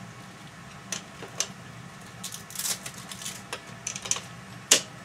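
Duct tape being pulled off and wrapped around a bicycle frame pump: short rasping tears with a few sharp clicks of handling, the loudest click near the end.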